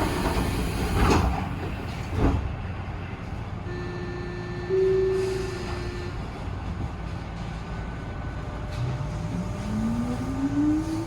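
Tobu 9000 series electric train car running, with a couple of loud noisy surges in the first two seconds and a steady tone for a couple of seconds in the middle. From about nine seconds in, the traction motor whine rises steadily in pitch as the train accelerates.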